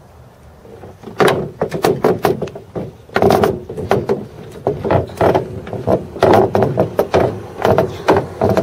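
Irregular run of loud knocks and clunks, starting about a second in, as a Schempp-Hirth Discus B glider's wing is shoved and jostled into the fuselage so that it seats.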